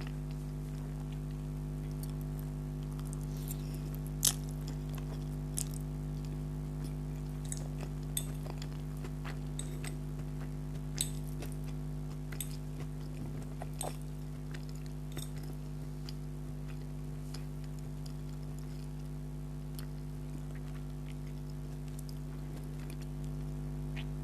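A person eating spaghetti, with soft chewing and scattered sharp clicks, most of them in the first half. All of it is over a steady low hum.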